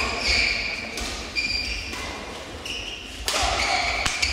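Sports shoes squeaking on a badminton court floor in short high squeaks, repeated several times, with a few light thuds and knocks. From about three seconds in, a general hall noise rises.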